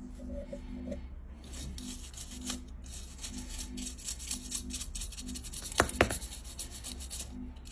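Hands rubbing and scraping on the fireplace heater's parts, a rasping noise with two sharp clicks about six seconds in, over a steady low hum.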